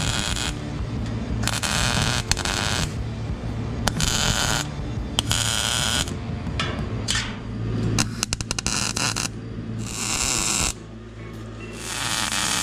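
MIG welder laying plug welds through a steel floor pan: a string of short crackling, hissing bursts, each lasting about a second or less, with short gaps between. The welds are stitched one after another.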